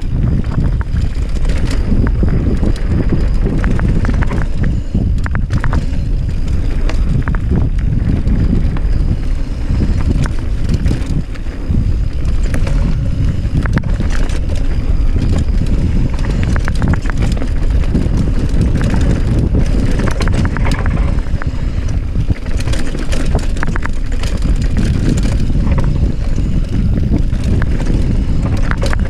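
Wind buffeting the microphone while a mountain bike descends a rough trail, with the bike rattling and knocking over rocks and roots throughout.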